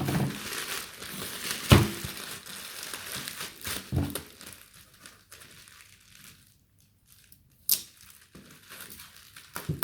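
Bubble wrap crinkling and rustling as it is handled and taped down with white packing tape, with a few sharp crackles. It goes much quieter a little past the middle.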